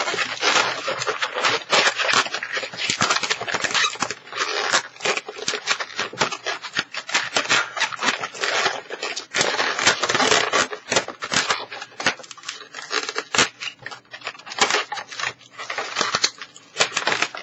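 Inflated 260 latex modelling balloons squeaking and rubbing against one another as they are twisted and tied together, a dense, continuous run of squeaks and crackles.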